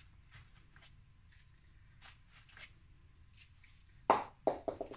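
Faint rustles and soft taps of a hand pressing potting soil into a plastic flower pot. About four seconds in, a short burst of loud, sharp sounds follows, the loudest thing here.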